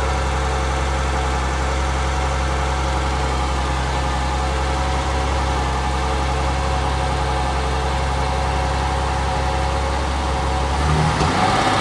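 Mercedes-Benz 300 SL's mechanically fuel-injected 3.0-litre straight-six (competition NSL version) idling steadily, not yet fully warmed up. Near the end the engine note rises.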